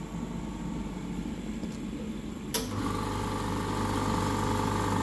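Oil-free air compressor for a hyperbaric chamber running with a low, steady noise. About two and a half seconds in, a click and a second, louder compressor starts up and runs with a steady hum and whine: the older 75-decibel model beside the quieter 55-decibel new one.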